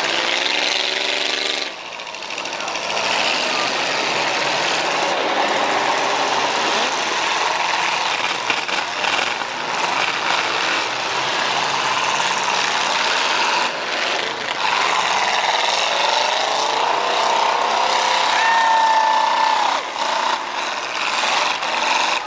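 Demolition derby cars' engines revving hard and racing, pitches rising and falling as the cars drive around and ram each other. Several heavy knocks of collisions come through over the engine noise.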